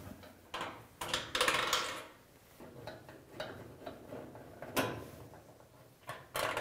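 A screwdriver turning out the screws that hold a dryer's top panel on, with metal scrapes and clicks against the sheet-metal cabinet: a longer scrape about a second in and a sharp click later on.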